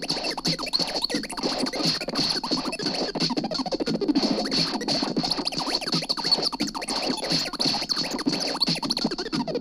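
Lo-fi experimental noise music: a dense, unbroken tangle of short warbling, squiggling pitch glides in the low-to-middle range, over a steady high hiss-like tone.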